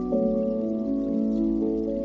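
Slow ambient music of long, overlapping held notes, a new note coming in every half second or so.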